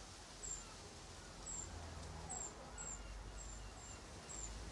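Small birds chirping: short, thin, high chirps repeating about once or twice a second, with a low steady rumble underneath.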